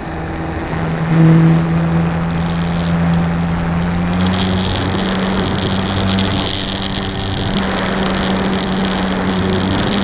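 Electric motor and propeller of a HobbyZone Super Cub RC plane running in flight, heard from a camera on the airframe, with a steady hum and a thin high whine. About four seconds in the pitch steps up and a rush of wind noise joins it.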